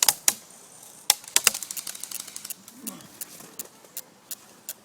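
Airsoft guns firing single shots, sharp clicking pops at irregular intervals. The loudest come in the first second and a half, with fainter ones after.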